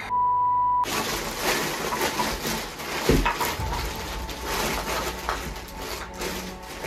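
A steady high-pitched censor bleep lasting under a second at the start, then several seconds of dense crinkly rustling and handling noise, with a dull thump about three seconds in.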